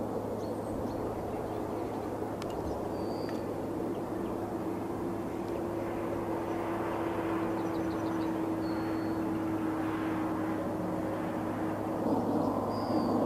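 Distant jet engines of a taxiing Embraer E-Jet regional airliner: a steady hum with a held drone, while small birds chirp briefly a few times. Near the end the noise gets louder and a rising whine sets in as another jet's engines spool up.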